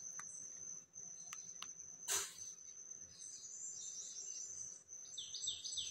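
Faint handling sounds from working a filter cartridge out of an RO purifier housing: a few light clicks and one short scrape about two seconds in, over a steady high thin tone. Near the end a small bird starts chirping rapidly, several quick falling chirps a second.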